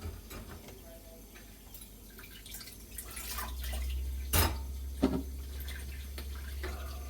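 Hand dishwashing at a kitchen sink: water dripping and a few sharp knocks of dishes, the loudest about four and five seconds in. A low steady hum starts about three seconds in.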